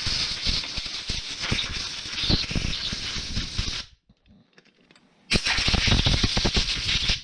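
Compressed-air blow gun blasting rinse water out of a Solex 34 PICT-3 carburetor body: a steady, crackling air hiss that cuts off about four seconds in and starts again about a second later.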